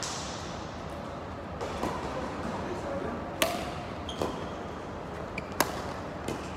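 Badminton rackets striking a shuttlecock during a doubles rally: several sharp hits spaced irregularly, the loudest about three and a half and five and a half seconds in.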